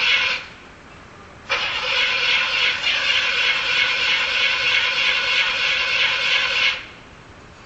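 A car engine held at a steady, high-pitched note, heard in two bursts that start and stop abruptly: a short one at the start and a longer one of about five seconds.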